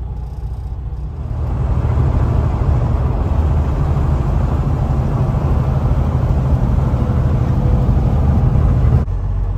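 Semi-truck cab noise at highway speed: a steady low engine drone mixed with road and tyre noise. It swells about a second in and cuts off suddenly near the end.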